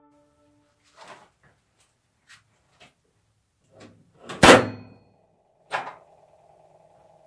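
A few light clicks and knocks, then a sharp clank about four and a half seconds in and another knock just over a second later, with a faint steady hum after the clank.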